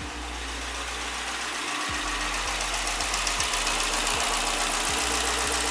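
A 2015 Dodge Challenger R/T's 5.7-litre Hemi V8 idles steadily, gradually getting louder. The knocking heard when it was first started has gone, a sign that the engine is healthy.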